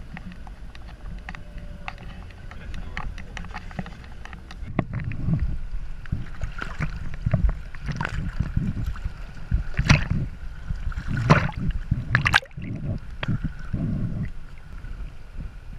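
A low, steady car-cabin rumble from driving that cuts off about five seconds in, giving way to small waves sloshing and gurgling around a camera held at the water's surface, with irregular splashes as the water slaps over the housing.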